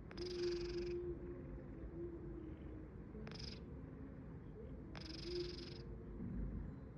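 A sleeping cat snoring: three hissy breaths, one about every two seconds.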